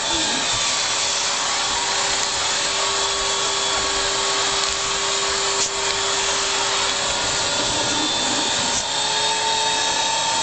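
Vacuum cleaner running steadily, a constant rushing hum with one steady tone through it, with a brief click about halfway.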